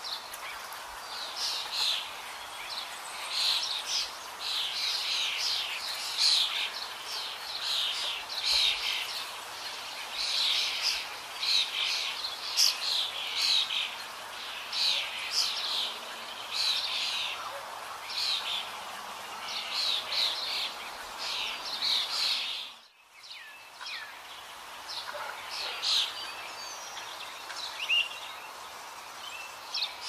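Birds chirping and trilling, many quick high calls over a steady hiss. The chirping breaks off briefly a little over two-thirds through and comes back sparser.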